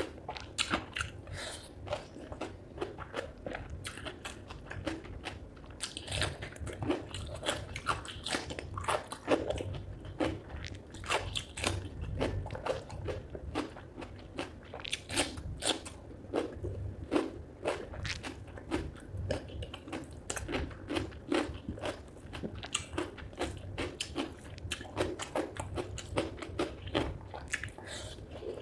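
Close-miked chewing and biting of spicy chicken feet curry with rice: a dense, continuous run of wet mouth clicks and crunches.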